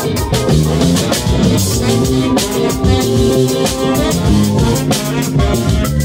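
Live band playing an instrumental soul-jazz tune: saxophone, keyboard, electric guitar and electric bass over a drum kit keeping a steady beat.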